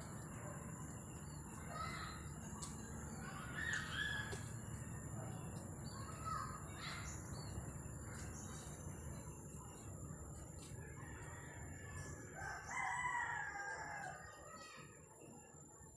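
A rooster crowing, its longest and loudest crow about thirteen seconds in, with shorter bird calls before it. A low steady rumble and a thin high whine run underneath.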